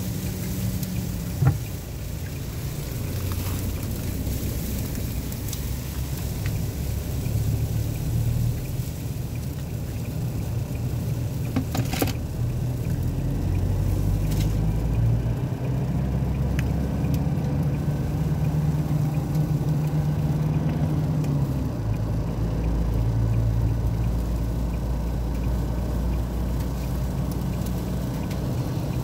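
Car driving through a sandstorm, heard from inside the cabin: a steady low engine and road rumble, with a few sharp clicks, one near the start and two around the middle.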